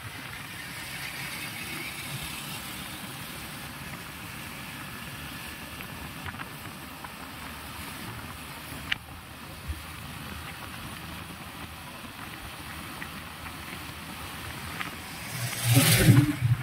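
Steady vehicle and road noise from riding in traffic, with a short loud buffet of wind on the microphone near the end.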